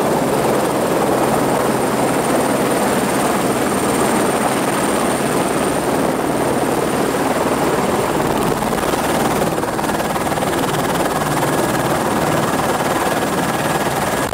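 Turbine helicopter running on the ground, heard from inside the cabin: a steady loud rush of rotor and engine noise with a thin, high turbine whine held on one pitch.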